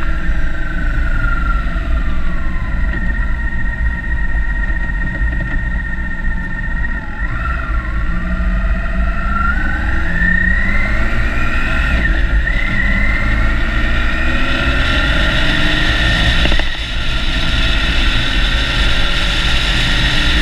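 Motorbike engine under way with heavy wind rumble on the bike-mounted microphone. The engine note falls over the first few seconds, dips briefly around seven to eight seconds in, then rises steadily as the bike accelerates.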